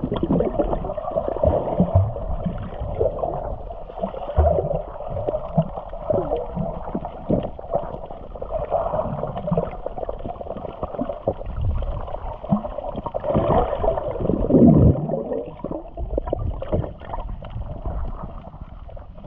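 Muffled underwater sound picked up by a submerged action camera: water gurgling and sloshing around it, with bubbles and scattered small knocks, swelling loudest about three-quarters of the way through.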